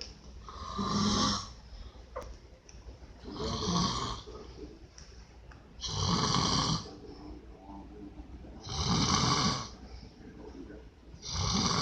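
A sleeping man snoring loudly at a regular pace, one snore about every two and a half to three seconds, each about a second long with a low rattle and a hiss; five snores in all, the last one near the end.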